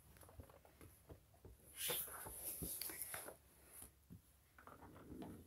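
Faint rustling and handling noise, loudest for about two seconds in the middle, with a few soft clicks around it; no distinct bubble pops.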